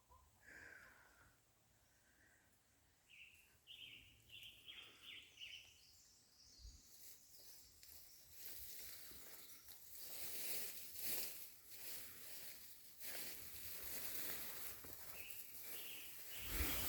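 Faint outdoor forest sound: a small bird gives a quick run of about six high whistled notes a few seconds in, then leaves and brush rustle and crackle unevenly as someone moves through the undergrowth.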